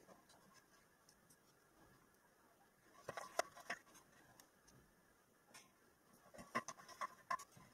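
Faint clicks and small taps of a screwdriver and screws against an LED chip and the floodlight housing as the chip is screwed down, in two short clusters about three seconds and six and a half seconds in.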